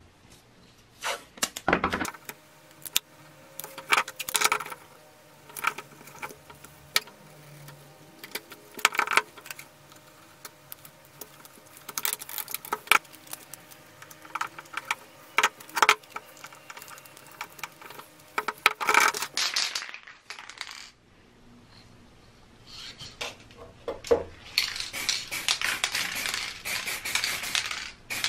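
Handling noises as a plastic tool housing is masked off: scattered sharp clicks and taps of masking tape being pulled and trimmed with a utility knife. Near the end, a dense hissing rattle from an aerosol can of plastic primer in use.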